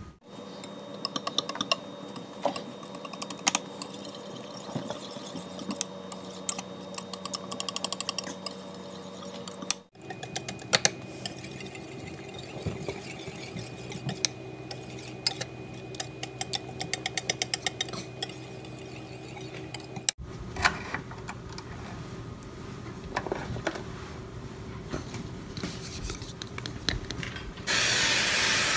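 A wire whisk beating batter in a bowl: quick runs of metal clinks against the bowl's side. About a second before the end, a loud steady hiss of cooking spray from an aerosol can begins.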